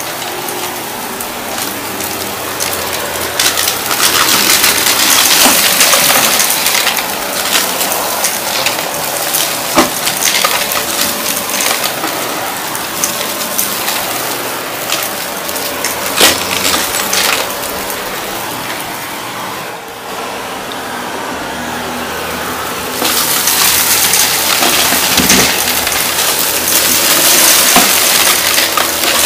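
Shark Navigator upright vacuum running as it sucks crunchy debris out of a shag rug, a dense crackle and rattle of particles over the steady motor tone. The crackle thins for a few seconds about two-thirds of the way through, then comes back louder.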